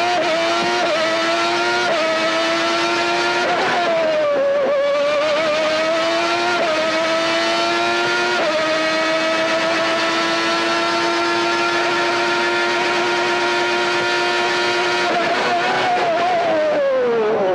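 Honda 3.5-litre V12 of a 1991 McLaren Formula One car at full throttle, heard onboard. The pitch climbs in steps through several upshifts, with a brief lift and dip about four seconds in, is held at high revs for several seconds on a straight, then falls as the car brakes and downshifts near the end.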